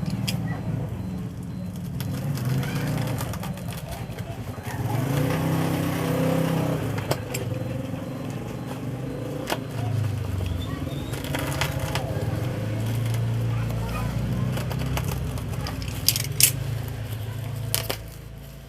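A courier parcel being opened by hand: plastic packaging rustling and tearing, with a few sharp clicks and snaps, over a steady low hum.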